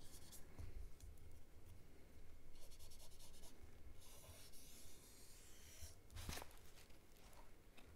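Faint scratchy brushing of a fine paintbrush laying alcohol ink onto smooth polypropylene paper, in a couple of short strokes in the middle. A single light tap comes a little after six seconds in.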